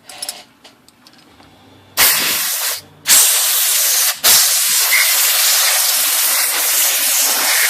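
Compressed air blasting into a typewriter's keyboard to blow out loosened dirt: a loud hiss in three blasts starting about two seconds in, the first two short and the last long and steady. Light handling clicks come before the air.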